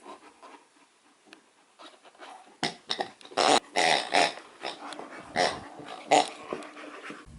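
Akita puppy vocalizing in a string of short sounds, starting a little over two seconds in and stopping about a second before the end.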